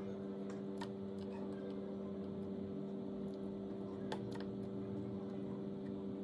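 A steady low hum with scattered, irregular light clicks and ticks over it.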